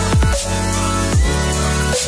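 Electronic dance music in the dubstep style: sustained synth chords with deep falling pitch sweeps every half second or so.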